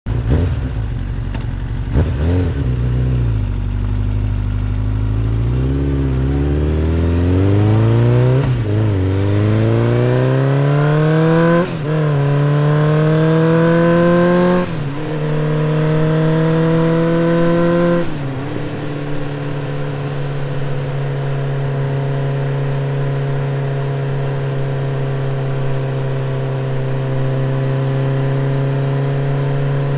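Yamaha FZ motorcycle's single-cylinder engine and exhaust while riding: the pitch climbs through the gears, dipping briefly at each upshift about 8, 12, 15 and 18 seconds in, then holds steady at a cruise.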